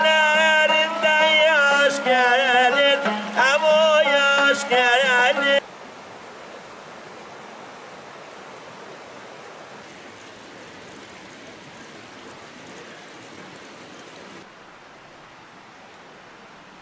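A man singing with wavering pitch to a plucked banjo-like lute, cut off suddenly about five and a half seconds in. After that comes the steady rushing of a shallow stream over rocks, a little fainter for the last couple of seconds.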